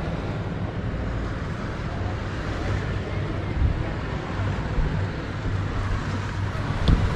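Fishing boat's engine running steadily with a low hum, with wind buffeting the microphone.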